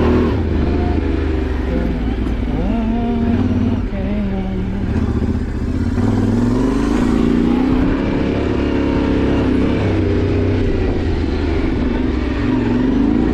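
Yamaha Ténéré 700's parallel-twin engine running as the motorcycle is ridden off-road, its revs repeatedly rising and falling.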